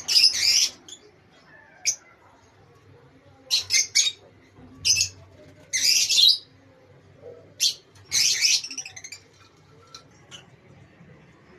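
Pet birds, parrot-type, giving harsh screeching squawks in short bursts, some single and some in quick runs of two or three. The calls are loudest at the start, around the middle and again about 8 seconds in, with only faint chirps after that.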